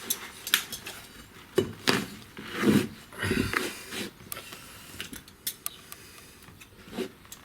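Hand tools being handled during carpet patching: scattered metallic clinks, taps and a few short knocks.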